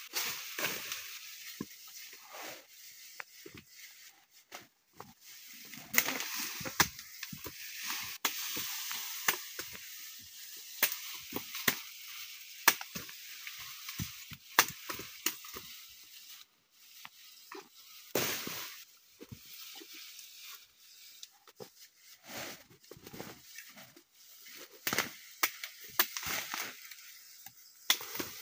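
Leaves and twigs of thick undergrowth rustling and crackling as a person pulls at plants and tramples through the brush, with many irregular small snaps.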